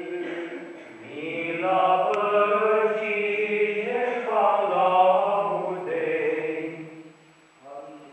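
Voices singing Orthodox liturgical chant: a slow, sustained melody with long held notes. It swells about a second in and dies away about seven seconds in.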